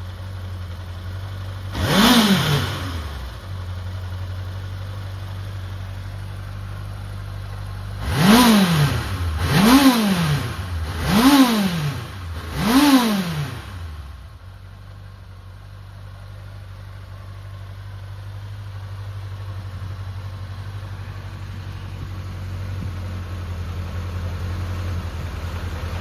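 Honda CB750FB Bol d'Or's air-cooled inline-four engine idling, revved once about two seconds in, then blipped four times about a second and a half apart before settling back to idle. The seller describes it as running without abnormal noises.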